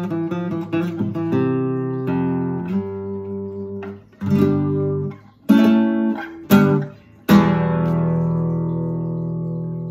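Yamaha G-50A nylon-string classical guitar played: ringing chords for the first few seconds, then three short chords stopped dead between them, and a final chord a little past seven seconds left to ring and slowly fade.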